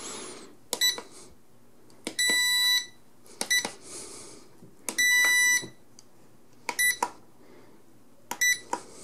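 V222 quadcopter transmitter's buzzer beeping as its working buttons are pressed: short double beeps alternating with two longer beeps of about two-thirds of a second. Each beep confirms that the button press has registered.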